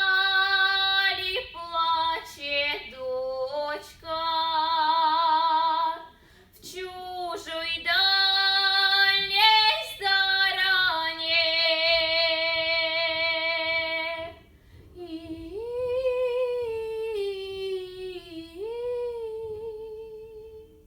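A girl's solo voice singing a Russian folk song a cappella in folk style, long held notes with vibrato in phrases broken by short pauses.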